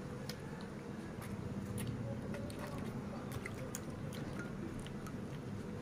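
Piglet sucking milk from a baby bottle and smacking its mouth: quick wet clicks and slurps, scattered irregularly over a steady low hum.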